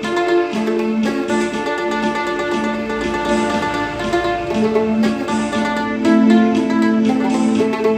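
Mandolin playing a solo melody in D minor, with some notes held for about a second.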